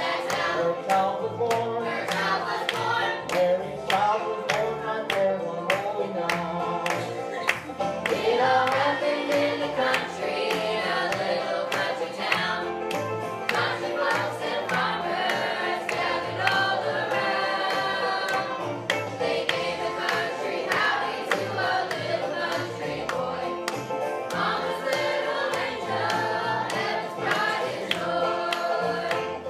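A group of young voices singing a song together, over an accompaniment that keeps a steady beat.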